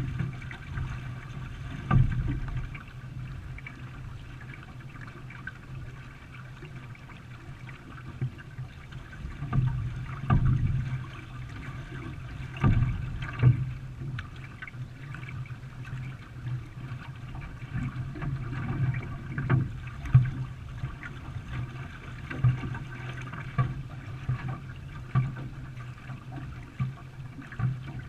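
Water splashing and sloshing around a racing canoe as it is paddled, with a steady low hum and irregular sharp thumps every few seconds, the loudest about 2, 10, 13 and 20 seconds in.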